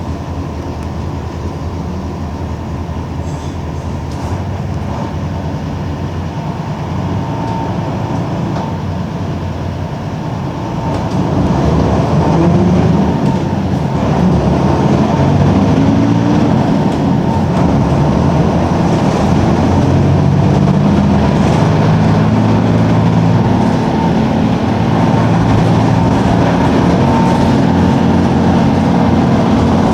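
Mercedes-Benz OM-366LA six-cylinder turbodiesel of an OF-1721 city bus running under way. About eleven seconds in, the engine note rises and grows louder as it pulls, then holds fairly steady.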